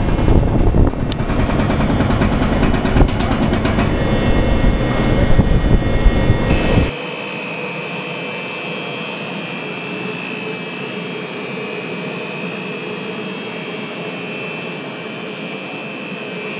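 Rotary plow feeder running: a loud, heavy mechanical rumble, then, about seven seconds in, an abrupt change to a quieter steady machine hum with a steady high whine from its electric drive motor and gearbox.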